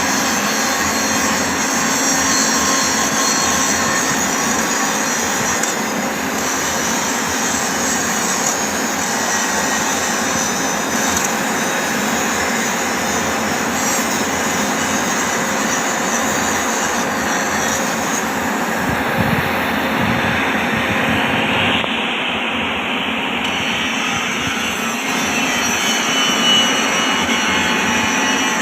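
Power grinder grinding the end of a steel rail, a steady loud whine with grinding noise. The tone of the whine shifts about two-thirds of the way through.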